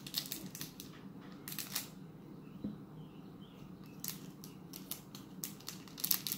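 Faint crinkling and scattered small clicks of a plastic-foil toy wrapper handled in the fingers, busiest about a second and a half in and again near the end.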